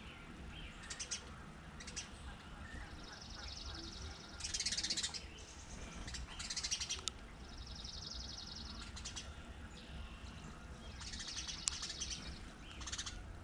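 Songbirds calling: a series of short buzzy chirps and two rapid trills, spaced a second or two apart.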